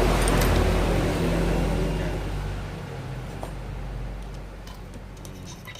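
A motor vehicle engine running steadily, then fading away about three seconds in, followed by a few light clicks.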